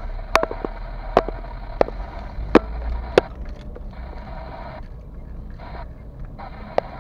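Steady low rumble of a car driving, heard from inside the cabin. Sharp clicks or rattles come about every half second to second for the first three seconds, and once more near the end.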